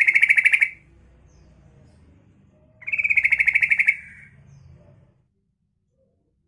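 Female yellow-vented bulbul calling to males: a rapid chatter of evenly repeated notes, about a dozen a second, heard as two bursts about a second long each, the first ending just under a second in and the second about three seconds in.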